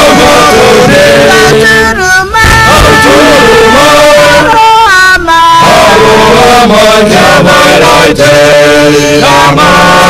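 A man singing a song loudly, in long held phrases with short pauses between them.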